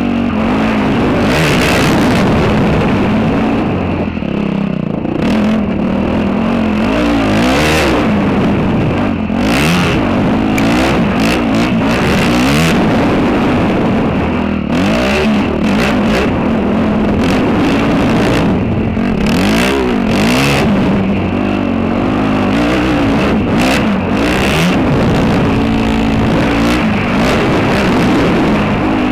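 Dirt bike engine running hard, revving up and dropping back again and again as it is ridden along a dirt trail.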